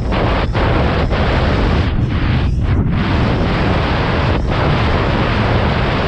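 Loud, steady wind buffeting on the microphone, rumbling low, with a few brief dropouts.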